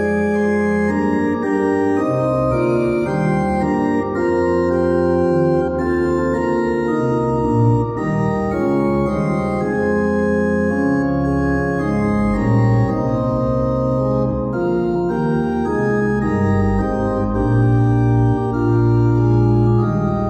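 Organ playing slow, sustained chords over a held bass, the chords changing every second or two.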